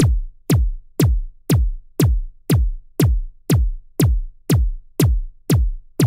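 Electronic background music: a drum-machine kick drum beating on its own at a steady two beats a second, each beat a sharp hit dropping quickly into a low boom.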